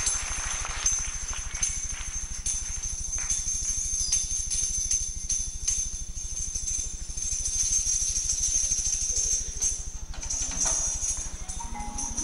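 Music of jingling bells and light shaken percussion, over a steady low hum; near the end a few pitched notes start stepping upward.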